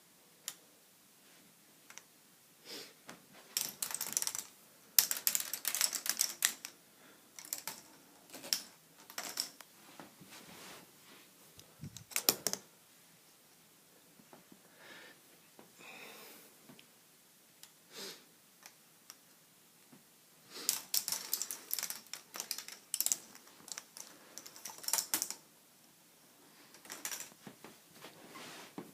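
Balls clattering through a K'nex ball machine's plastic tracks and elements: bursts of rapid clicking and rattling with quieter gaps between, busiest a few seconds in and again past the twenty-second mark.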